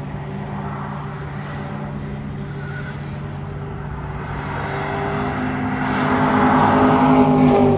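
BMW E90 M3's V8 with an aftermarket exhaust, running at speed on track as the car approaches, growing steadily louder over the last few seconds.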